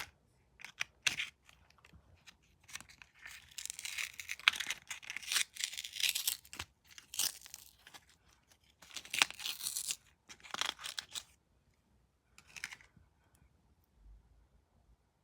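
Product packaging being torn open and handled: tearing and crinkling, with sharp clicks, in two long spells and a short one, then quiet near the end.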